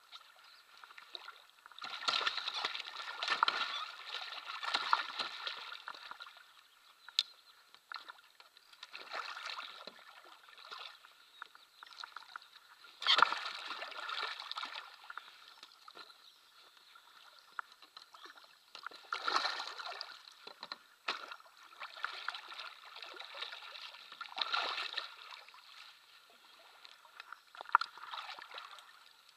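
A hooked wels catfish thrashing at the surface beside an inflatable float tube as it is played and landed. The water splashes and sloshes in irregular bursts, with the sharpest splash about halfway through.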